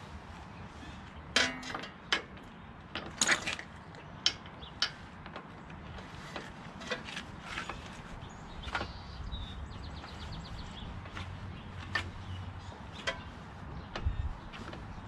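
Scattered sharp metallic clicks and knocks of hand tools against a lawn tractor's engine while the engine is turned over by hand for a valve clearance check. The loudest come in a cluster in the first few seconds.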